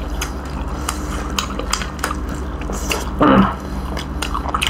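Mouth sounds of eating roasted duck: chewing and biting, with many small wet clicks and smacks. A brief louder sound comes a little past three seconds in, over a steady low hum.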